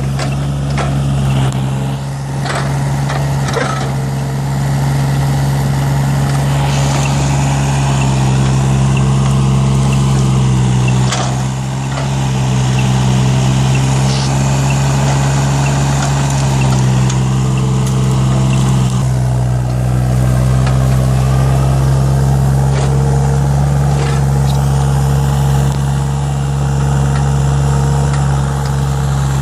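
Hitachi ZX35U mini excavator's diesel engine running steadily while its hydraulics are worked. The engine note shifts several times as loads come on and off, with a few sharp knocks from the machine.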